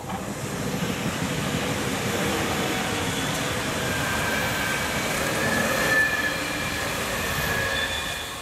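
Hamburg U-Bahn train passing close by on a curve: a steady rumble of wheels on rail that swells in quickly and fades near the end. From about halfway a high squeal of the wheels on the curved track rides over it.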